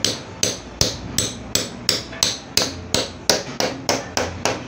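A hammer strikes the top of a steel tube punch about fourteen times in a steady rhythm, roughly three blows a second. The tube is driven through a piece of rubber rim protector laid on a wooden bench, punching out the outer circle of a hydraulic jack piston packing.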